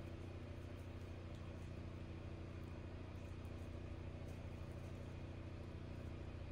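Generator engine running steadily, a low, even drone.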